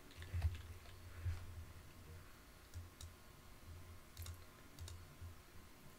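A few faint, scattered clicks from a computer mouse and keyboard at the desk, over a low hum that comes and goes.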